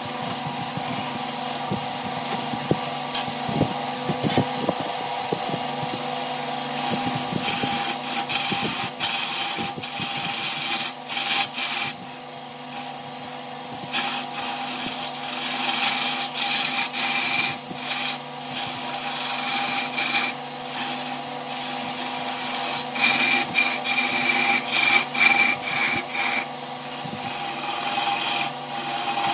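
Wood lathe running with a steady motor hum while a hand-held gouge cuts into the spinning wooden blank, throwing off shavings; the cutting scrape and hiss comes and goes in bouts.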